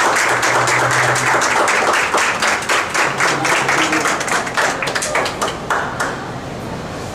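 A small group applauding by hand, the claps dense at first, then thinning out and stopping about six seconds in.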